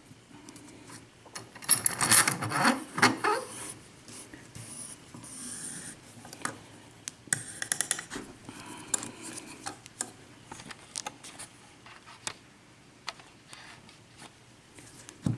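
Metal tools scraping and rubbing, with scattered light clicks: lock-picking tools being handled and worked at a euro cylinder lock held in a vise. Two louder stretches of scraping come about two seconds in and again about seven seconds in.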